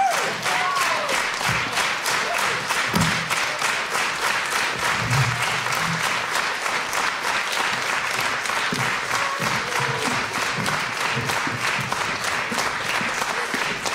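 Concert audience applauding, clapping together in a steady rhythm, with a few whistles near the start.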